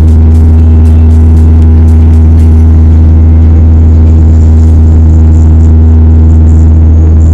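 Inside the cabin of a Bombardier Dash 8 turboprop climbing out just after takeoff: the propellers and engines give a loud, steady low drone with several higher steady hum tones above it.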